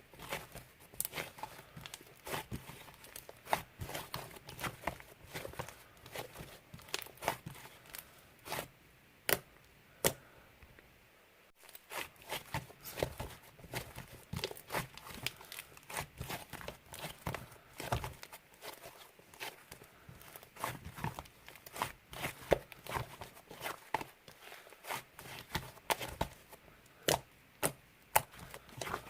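Cloud slime being stretched, pulled apart and squished by hand, giving a dense run of crackly, tearing pops, with a brief pause about eleven seconds in.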